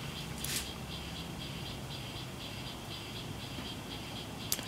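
Servo motor of a direct-drive telescope mount, faintly whining as it drives the mount back and forth on a 2 Hz sine-wave velocity command. The whine comes and goes about twice a second over a low steady hum.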